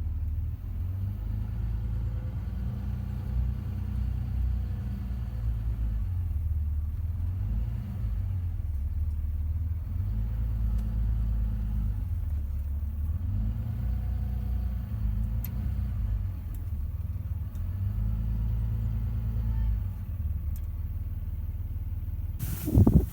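A vehicle engine running with a low, steady rumble, its pitch shifting up and down several times.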